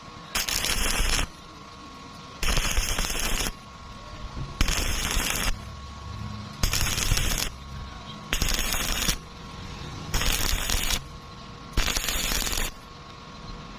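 Stick-welding arc crackling in short bursts, about seven of them, each lasting roughly a second, as iron rods are tack-welded to thin square iron tube.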